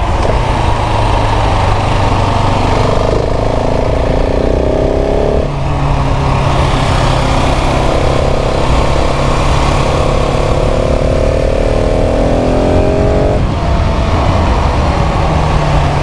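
KTM 690 SMC R's LC4 single-cylinder engine running under way, with wind rush. Its pitch climbs slowly, falls away about five seconds in, climbs again and drops off about thirteen seconds in.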